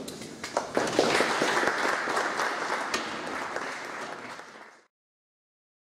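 Audience applauding, a dense patter of clapping that swells about a second in, then fades away and cuts off just before the end.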